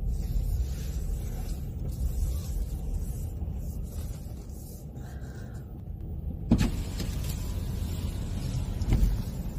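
Car running, heard from inside the cabin as a steady low rumble. There is a sharp knock about six and a half seconds in and a softer one near the end.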